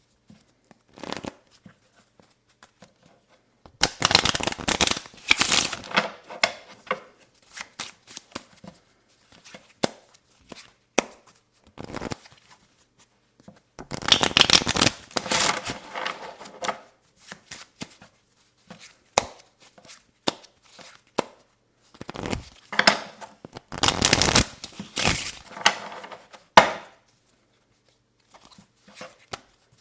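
Playing cards shuffled close to the microphone in three bursts of a few seconds each, starting about 4, 14 and 22 seconds in. Scattered light taps and clicks of the cards come in between.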